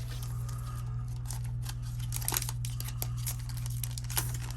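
Scissors snipping repeatedly, cutting open a trading-card booster pack's foil wrapper, a run of short sharp clicks. A steady low hum runs underneath.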